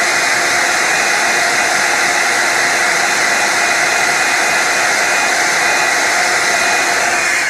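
Small handheld hot-air blower running steadily with a whirring fan whine, warming the adhesive pad of a helmet chin mount before it is pressed on; it cuts off suddenly at the end.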